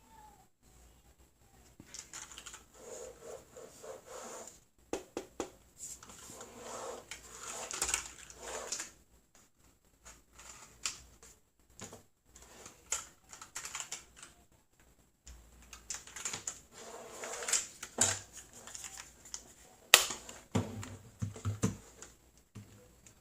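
Typing on a Redragon K556 mechanical keyboard with brown tactile switches: keys clacking in quick irregular bursts broken by short pauses, with a few sharper single key strikes near the end.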